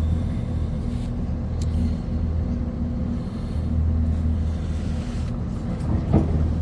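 Steady low mechanical drone with a constant hum, and a single short knock near the end.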